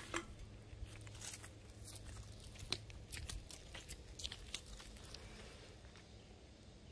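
Clear plastic bag full of empty aluminium drink cans crinkling, with the cans clicking against one another as the bag is handled and set down; the crackling dies away after about five seconds.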